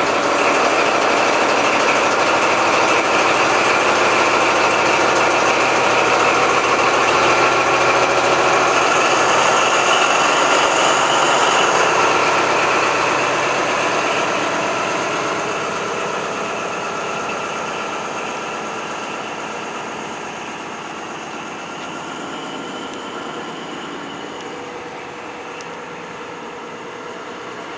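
A Class 43 HST diesel power car accelerating away at full power as it passes, a loud engine note with a high whine. The sound fades steadily over the second half as the coaches roll by.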